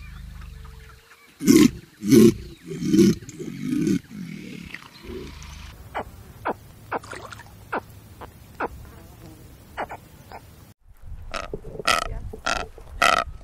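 Caiman giving four loud, deep calls in quick succession, followed by a run of short sharp ticks. After a sudden cut near the end, a blue-footed booby calls in a series of short, quick honks.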